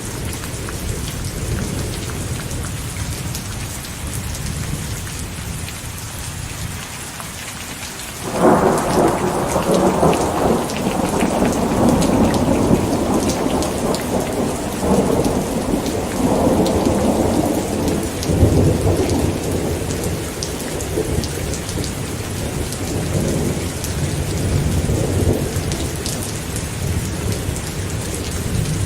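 Steady rain with thunder: about eight seconds in a thunderclap breaks in suddenly and rolls on for roughly ten seconds, then settles into a low rumble under the rain.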